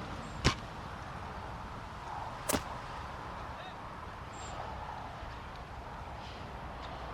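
Two sharp airsoft gunshot cracks about two seconds apart, the first the louder, over steady outdoor background noise.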